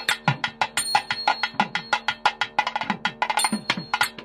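Fast Indian-style percussion music: rapid sharp drum strokes, several a second, with deeper strokes that drop in pitch, over a steady bell-like ringing tone.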